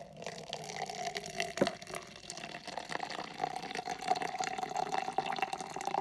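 Hot water poured in a steady stream from a kettle into a plastic measuring jug. A resonant note in the pour rises slowly in pitch.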